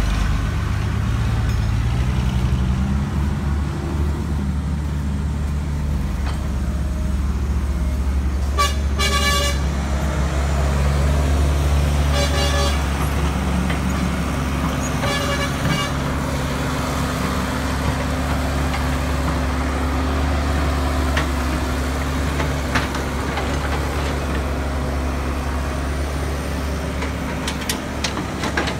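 Heavy diesel excavator engine running steadily, with a vehicle horn sounding three short times, about nine, twelve and fifteen seconds in.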